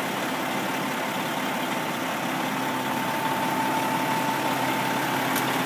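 Fire truck's diesel engine running steadily, with a faint steady whine above the hum.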